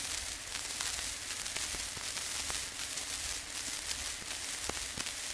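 Surface noise of an old acoustic recording: steady hiss and crackle with scattered clicks over a low rumble, and no music.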